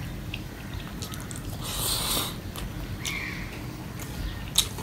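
Eating by hand: fingers mixing rice on a stainless steel plate and chewing, soft wet squishes and mouth clicks, with a brief hissing noise about two seconds in and a sharp click near the end.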